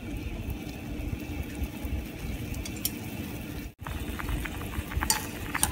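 Pot of broth with thick rice noodles boiling: a steady low bubbling rumble with scattered small pops and ticks. The sound cuts out for a moment about two-thirds of the way through.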